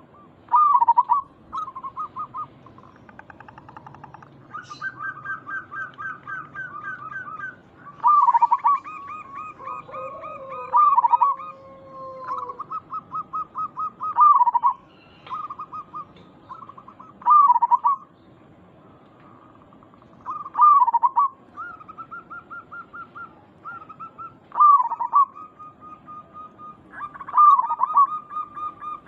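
Zebra doves cooing: loud short coos recurring every few seconds, separated by rapid trilled strings of soft notes, with more than one bird's phrases overlapping at times.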